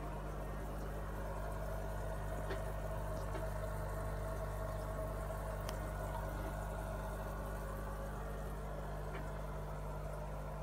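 Aquarium pump humming steadily, with water bubbling and trickling in the tank and a few faint clicks.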